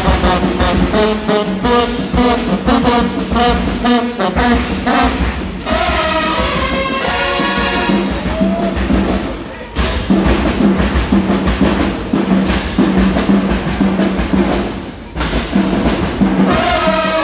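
High school marching band playing: sousaphones, trumpets, trombones and saxophones over steady drum strokes. The band holds long chords in the middle, then comes back in with sudden loud hits, once about ten seconds in and again near the end.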